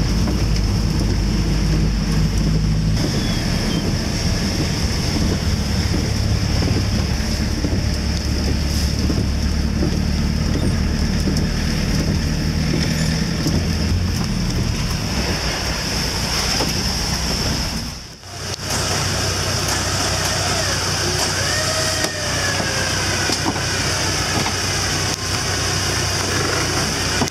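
A Volkswagen Syncro van's engine running as it drives, heard from inside the cabin. After a sudden cut about two-thirds in, an engine idling steadily.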